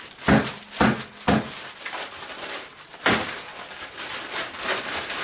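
Handling noise from a homemade fan-and-ice-bottle cooler being assembled: three quick knocks in the first second and a half, another about three seconds in, with rustling between.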